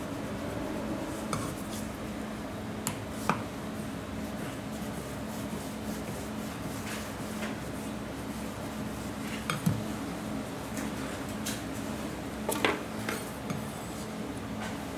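Kitchen knife slicing thawed bigfin reef squid on a plastic cutting board: scattered sharp clicks and knocks as the blade meets the board, the loudest about three seconds in, again near ten seconds and near the end. A steady low hum runs underneath.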